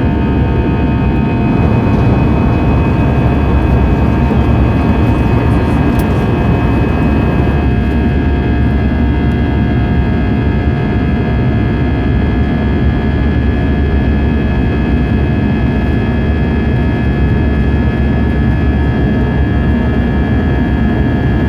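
Airbus A320-200's jet engines heard from inside the passenger cabin: a loud, steady roar of engine and airflow noise with several steady whining tones. One of the tones drops out about eight seconds in.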